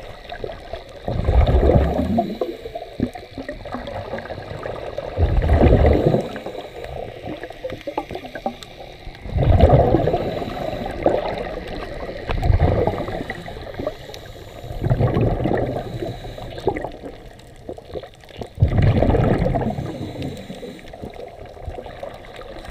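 Scuba regulator exhaust bubbles heard underwater: six bubbling rushes, one every three to four seconds, as the diver breathes out, over a steady underwater hiss.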